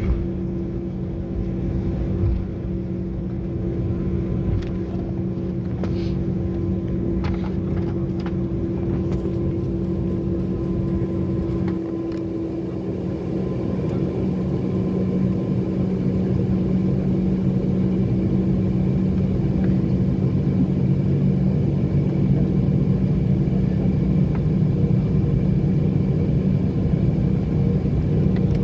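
Airliner cabin noise during taxi: the engines' steady hum and low drone, growing somewhat louder about halfway through, with a few faint clicks in the first seconds.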